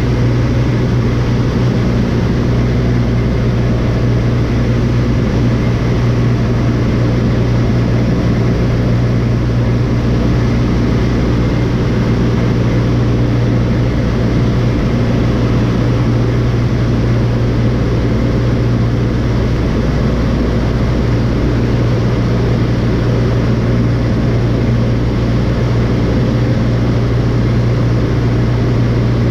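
Light airplane's piston engine and propeller running at a steady speed: a constant, loud drone with a strong low hum.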